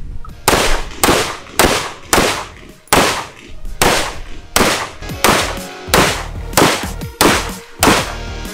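Semi-automatic AR-style carbine fired in a steady string of about a dozen shots, roughly two a second, with short pauses as the shooter moves.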